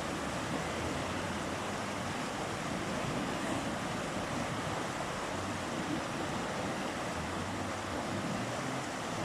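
A mountain river flowing, a steady rushing of water.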